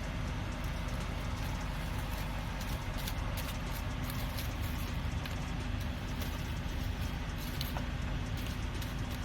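Steady low drone of a semi truck's diesel engine idling, with scattered light clicks and ticks on top.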